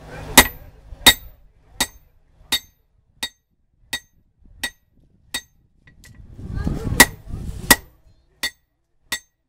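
Hand hammer striking a hot coil-spring-steel axe head on an anvil, a steady blow about every 0.7 seconds, each with a short metallic ring, with one brief pause in the middle. A low rushing noise swells up under the blows near the start and again about two-thirds of the way through.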